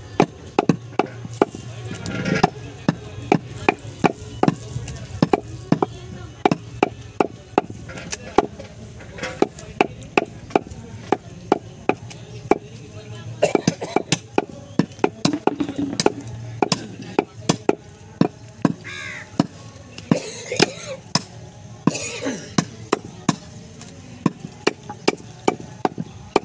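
Large butcher's knife chopping goat meat against a wooden log chopping block: a steady run of sharp chops, two or three a second.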